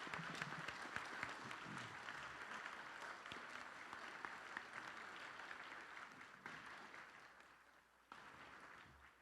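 Audience applauding, a dense patter of many hands clapping that slowly dies away over the last few seconds.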